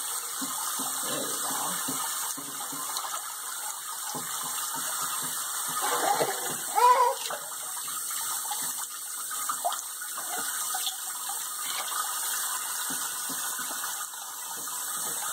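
Kitchen faucet's spray head running steadily into a sink full of water, with small splashes from a baby's hands. A short squeal from the baby about seven seconds in.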